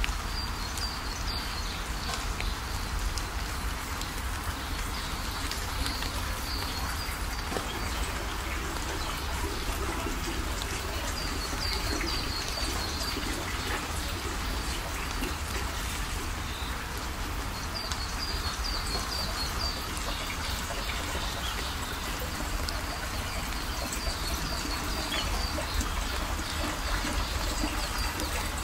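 Steady trickle and splash of a thin stream of water falling from a pipe into a pond, with small birds chirping in short, quick runs of high notes every few seconds.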